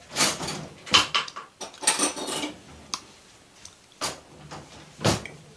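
A handful of sharp clinks and knocks of a metal fork and tableware, about five spread over the few seconds, with quiet stretches between them.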